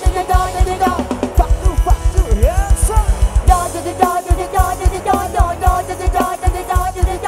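Live Thai pop band music from a rot hae sound-truck band, with a steady drum beat. About a second and a half in comes a quick run of bass-drum hits, with a sliding note in the melody over it.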